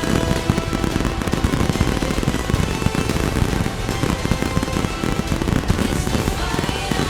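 Rapid crackling and popping of fireworks bursting over the show's music soundtrack.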